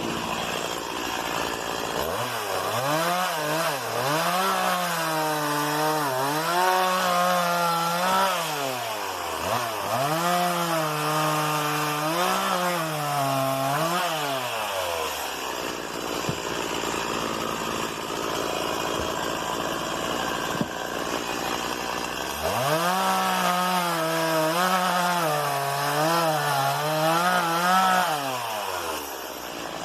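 STIHL MS 170 two-stroke chainsaw cutting wood in two long spells. The engine revs high, its pitch dipping and rising repeatedly as the chain bites, and it drops back between cuts.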